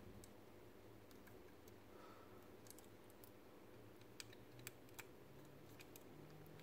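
Precision screwdriver clicking faintly against tiny screws as they are driven into a robot's plastic servo housing, with a few sharp ticks about four to five seconds in.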